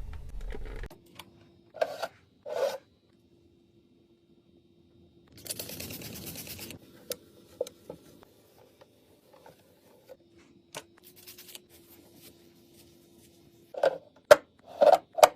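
Items being handled and set down while restocking a mini fridge: two hollow knocks, a short rustle of packaging about five seconds in, and a quick run of knocks and taps near the end, over a faint steady hum.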